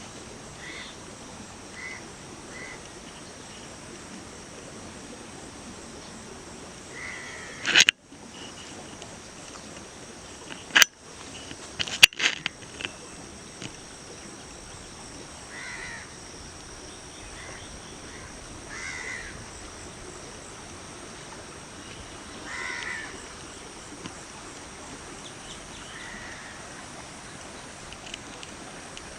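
Birds calling outdoors, short calls every few seconds over a steady faint hiss, with a few sharp loud clicks or knocks about a third of the way through.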